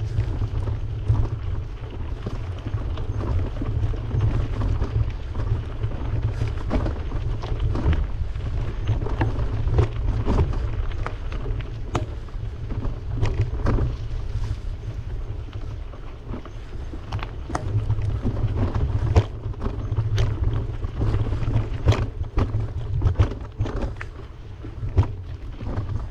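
Wind rumbling on the microphone of a camera riding along on a bicycle, with frequent short clicks and rattles from the bike and its tyres on the trail.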